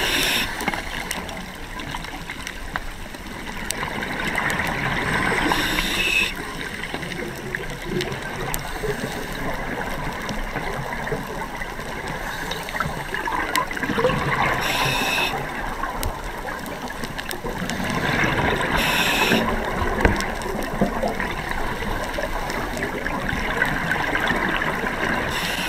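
A scuba diver's breathing heard underwater: a steady bubbling, gurgling wash of exhaled air, with four short hisses of the regulator several seconds apart.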